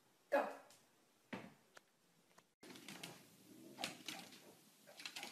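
A few short knocks and thumps, the strongest about a third of a second in, then faint room noise with light clicks.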